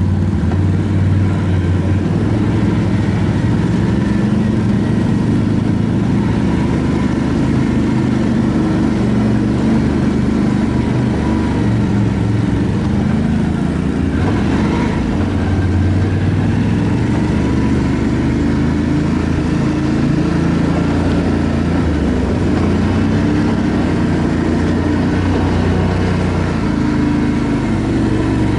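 ATV engine running while riding, its pitch rising and falling with the throttle.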